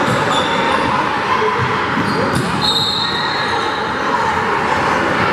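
Basketball game on a hardwood gym court: sneakers squeaking and a ball bouncing over steady crowd chatter. The longest squeak comes just under three seconds in.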